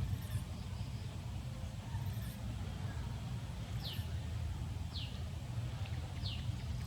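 Three short, high chirps, each falling in pitch, about a second apart in the second half, over a steady low rumble.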